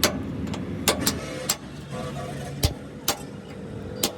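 Six or seven sharp knocks at uneven intervals over a steady low engine or machine hum.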